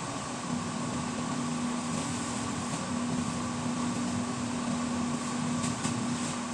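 Steady mechanical hum: a constant low tone over an even hiss, with a couple of faint ticks near the end.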